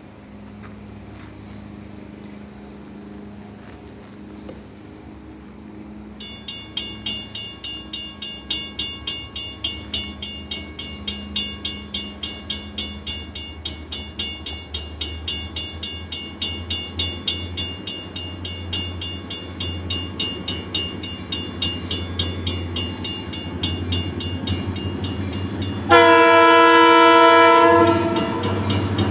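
Diesel freight locomotives running as they approach, a low steady engine hum. About six seconds in, a grade-crossing bell starts ringing in regular strikes, and near the end the lead locomotive sounds its horn, a loud blast of about two seconds.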